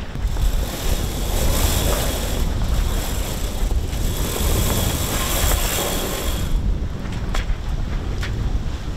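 Mainsail being lowered: sailcloth rustling as it slides down onto the boom, stopping about six and a half seconds in, followed by a couple of sharp clicks. Wind buffets the microphone throughout, over the sea.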